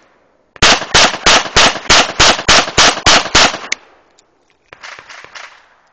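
SIG Mosquito .22 semi-automatic pistol fired rapidly, about ten shots at roughly three a second, followed by a single sharp metallic click. Some fainter clatter comes near the end.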